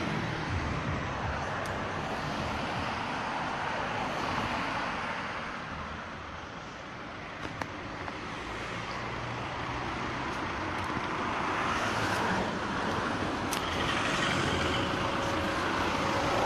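Road traffic noise: a steady rush of passing vehicles that eases off about six seconds in and builds again, with a few faint clicks.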